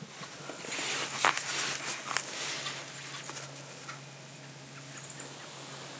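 Close rustling and crackling with a few sharp clicks, loudest in the first couple of seconds and then fading to a light rustle, over a low steady hum.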